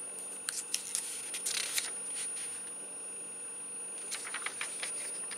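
Handling of a glossy paper catalogue: scattered short rustles and scrapes of fingers on the pages. Under it runs a steady high-pitched whine, a recording glitch.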